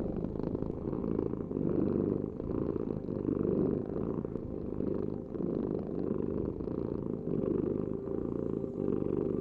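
Domestic cat purring steadily, a continuous low rumble that swells and eases in a slow rhythm every second or two.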